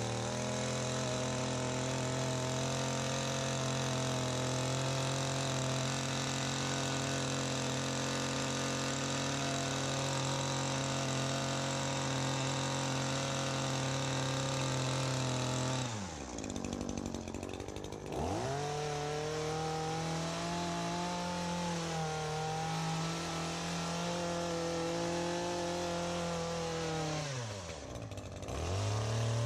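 ECHO PAS2620 power head's small two-stroke engine driving an articulating hedge trimmer attachment through shrubs, held at steady full throttle. About sixteen seconds in, and again near the end, the throttle drops to idle for a second or two, then revs back up.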